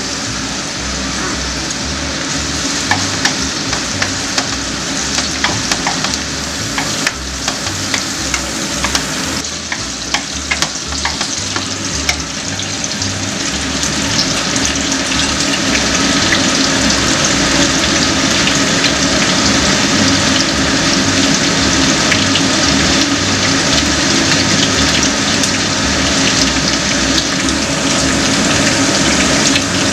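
Hot-pot seasoning base frying in hot oil in an enameled cast-iron pot: a continuous sizzle with lots of sharp crackles and pops, getting louder from about halfway through.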